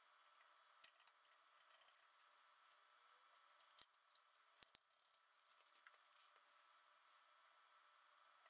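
Faint, scattered small clicks and scrapes of a precision screwdriver working the tiny screws that hold a filter mask on a filter wheel, with light handling noise from gloved hands.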